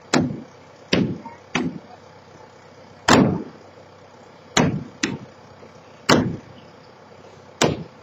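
Eight sharp, heavy blows at irregular intervals of about a second, some in quick pairs, each with a short ringing tail: the silo being struck and broken up during its demolition.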